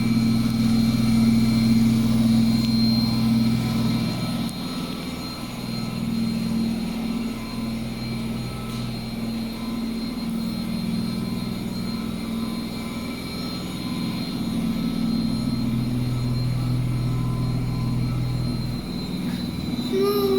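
Noisy washing machine running: a steady droning hum with a thin high whine above it, its lower tone dropping away about four seconds in and returning near the end.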